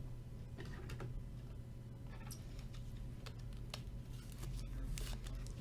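Trading cards being handled, with faint irregular clicks and light rustles of card stock and plastic holders, a few sharper clicks about five seconds in. A steady low hum lies underneath.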